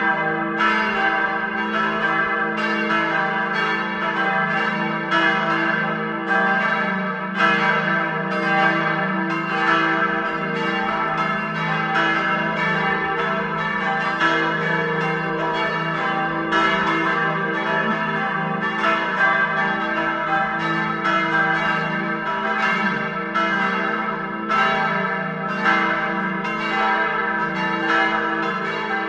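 Full peal of four church bells, tuned e', g', a' and c'', all ringing together, their strokes overlapping continuously in an irregular, shifting pattern.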